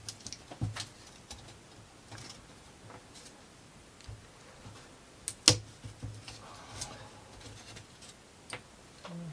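Light, scattered clicks and taps of small plywood model-kit parts being handled on a work surface, with one sharp click about five and a half seconds in.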